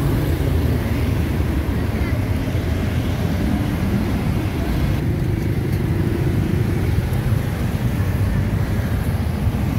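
Street traffic: motorbike and car engines passing, heard as a steady low rumble.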